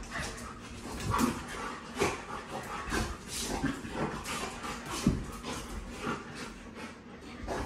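Dogs play-wrestling: panting and short whines, with paws and claws scuffling and knocking irregularly on a hard floor.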